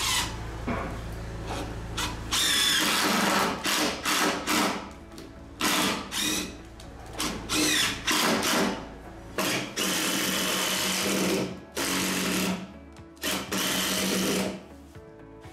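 Cordless impact driver driving screws into a pine staircase, in about ten short bursts of a second or so each, with brief pauses between.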